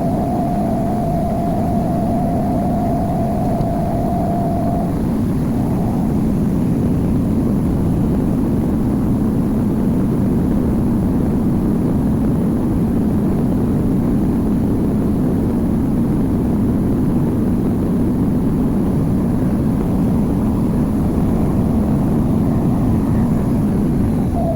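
Samsung washing machine running fast, a loud steady rumble and whir, with a thin steady whine over it for the first five seconds or so.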